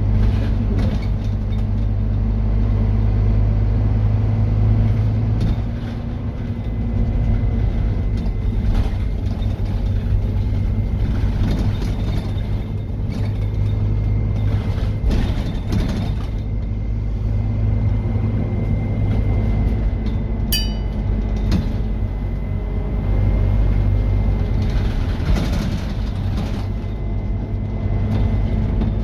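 Scania N230UD double-decker bus's five-cylinder diesel engine running under way, heard from inside on the upper deck: a steady low drone that eases off briefly twice, with a faint steady high whine throughout. A short high ping sounds about two-thirds through.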